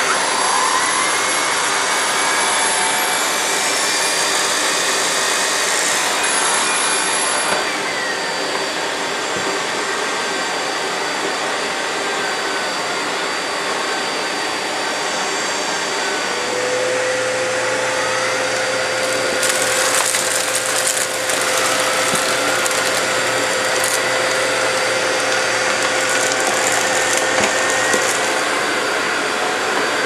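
Dyson DC05 cylinder vacuum cleaner running, with a steady high motor whine and a whistling airflow tone that slides up and down in pitch as the floor tool is fitted and pushed over carpet. From about halfway a lower hum joins in, and a few knocks come about two-thirds of the way through.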